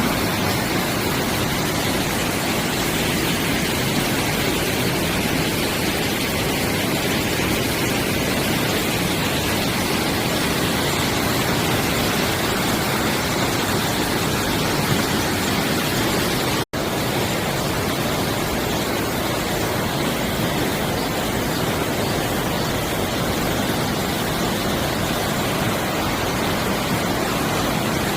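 Mountain stream water rushing steadily, a dense even noise. It cuts out for an instant about two-thirds of the way through.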